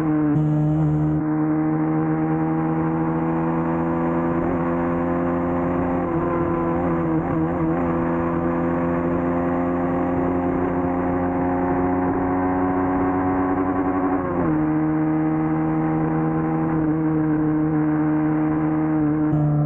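Motorcycle engine through its stock exhaust, running at steady revs, with the pitch dropping briefly about 14 seconds in as the revs fall, then holding again.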